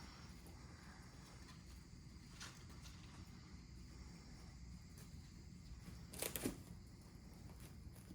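Quiet room with a low steady hum; a faint click about two and a half seconds in, then a short cluster of sharp scratchy clicks about six seconds in.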